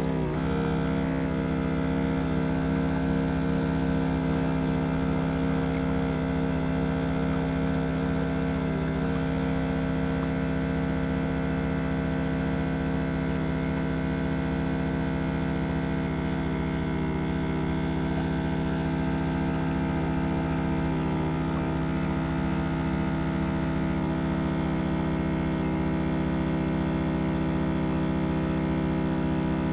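A motor running with a steady, unchanging hum at one constant pitch.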